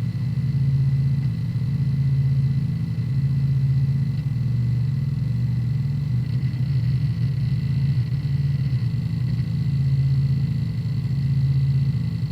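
Hard disk drive running a defragmentation: a steady low hum and rumble of the drive with rapid seek chatter from the heads, swelling and easing every couple of seconds, over a faint high whine.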